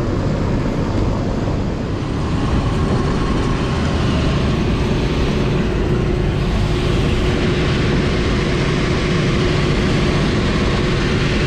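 Packaged rooftop air-conditioning unit running, its blower wheel spinning normally: a steady whooshing drone with a steady hum tone in it. It gets a little louder about two and a half seconds in.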